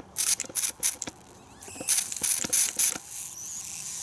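Hand trigger spray bottle squirting soapy water onto a washer-fluid pump in two runs of quick squirts. Near the end comes a steady fizzing hiss as air blown into the pump bubbles out through the soap film at the leak.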